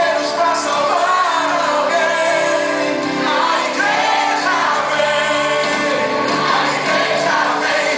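Portuguese-language gospel worship song playing from its recording: sung vocals over instrumental backing.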